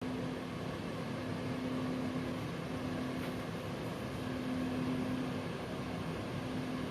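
Steady machine hum and hiss, with a low droning tone that fades in and out every second or two.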